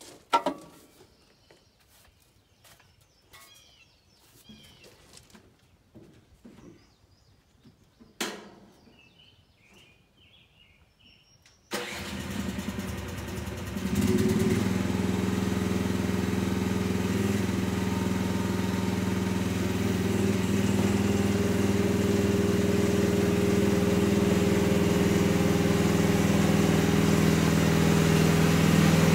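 A few sharp clicks and knocks. Then, about twelve seconds in, the 13.5 hp Briggs & Stratton petrol engine of an AGT QH12 mini excavator comes in abruptly and runs steadily. It grows louder from about two seconds later as the machine drives closer.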